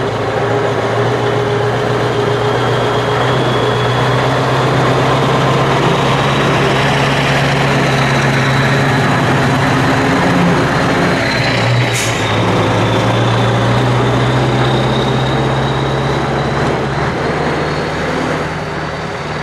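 Scania 141's 14-litre V8 diesel running under light load as the tractor unit drives by and pulls away. The engine note is fairly steady, with one short sharp noise about twelve seconds in, and it fades a little near the end as the truck moves off.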